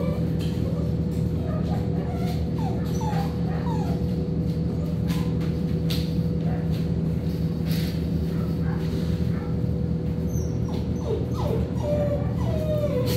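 Dogs playing, giving short whimpers and yips, more of them near the end, over a steady low hum with a faint steady tone above it. A few brief clicks.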